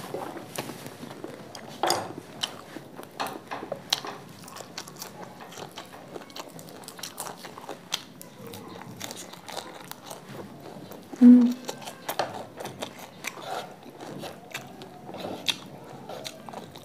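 Close-miked eating: crunchy bites and chewing of fresh lettuce leaves and fried instant noodles, with many small crisp crunches and wet mouth clicks. A short low hum from the eater about eleven seconds in is the loudest sound.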